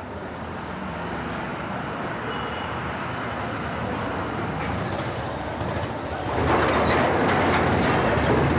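Steady noise of a moving vehicle, growing louder about six and a half seconds in.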